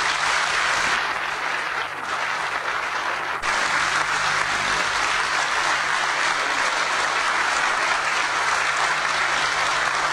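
Sustained applause from a large audience clapping.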